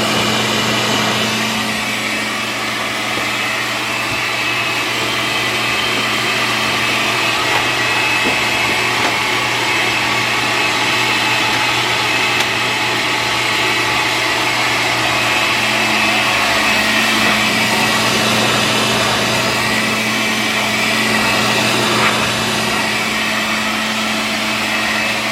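Countertop blender running steadily at high speed, blending a smoothie of spinach, frozen fruit and water, with a constant motor hum under the churning of the jar.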